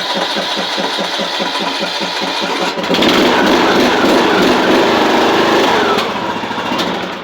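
John Deere D110 lawn tractor engine on a cold start: the starter cranks it over in even pulses, about six a second, then about three seconds in the engine catches and runs.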